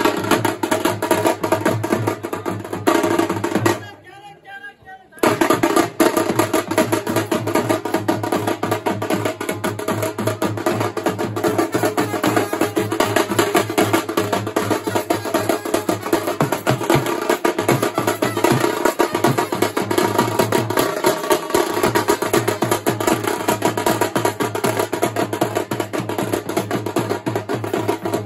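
Drums beaten hard in a fast, dense, unbroken rhythm, with sharp clacking strikes over a low drum beat and crowd voices mixed in. The drumming drops away for about a second near four seconds in, then picks up again.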